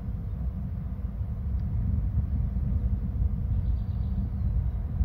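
A steady low rumble on an outdoor microphone, with a faint high-pitched trace near the end.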